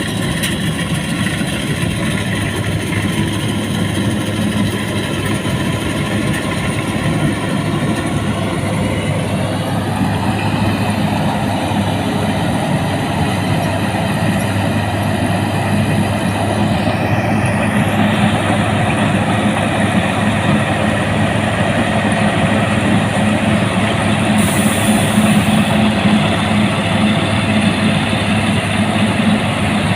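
Rice combine harvester running steadily, its engine and machinery making a loud continuous drone, with the tone shifting slightly a couple of times.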